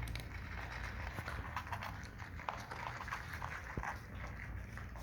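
Cats eating: a run of quick, irregular small clicks of chewing and lapping at food, over a low background rumble.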